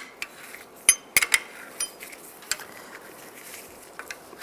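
Sharp metal clicks and clinks from a door hinge spring tool and the hinge as the spring is worked into position, about half a dozen irregular ticks, two close together about a second in.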